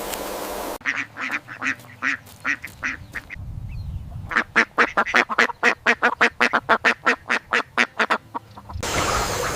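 A bird calling in runs of short repeated notes: a slower string of about ten notes, then after a pause a faster, louder run of about twenty that ends suddenly.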